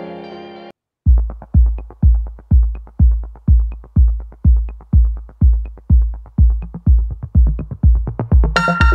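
Background music: a soft keyboard passage ends about a second in. After a brief gap, an electronic track starts with a steady drum-machine kick about twice a second, and fuller synth parts join near the end.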